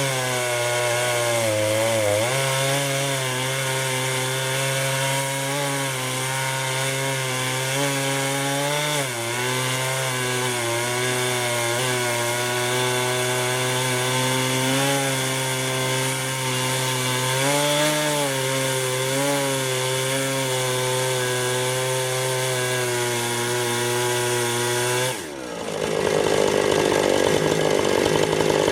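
Husqvarna Rancher 455 two-stroke chainsaw with a 24-inch bar and ripping chain running under load in a chainsaw mill, ripping a log lengthwise. Its steady engine note sags briefly a few times as the chain bogs in the wood. About 25 seconds in, the note drops away suddenly and a louder, rougher noise takes over.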